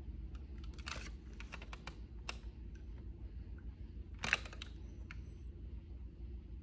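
Light clicks and taps of a nail polish bottle and its brush cap being handled, with a quick run of them in the first couple of seconds and the loudest single click about four seconds in, over a low steady hum.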